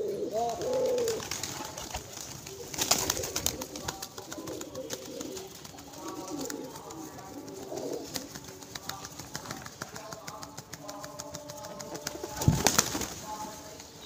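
Rock pigeons cooing and flapping their wings while crowding a hand to peck grain. The wings make rapid flutters throughout, with louder flurries about three seconds in and near the end.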